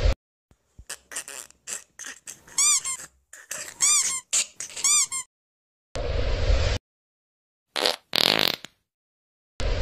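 A rapid string of short, squeaky farts, some rising and falling in pitch, for about five seconds. A few longer, rougher farts follow.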